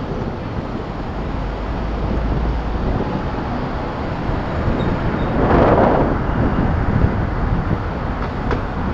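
Wind rushing over an action camera's microphone mounted on the outside of a moving vehicle, with road and traffic noise, swelling louder about five and a half seconds in.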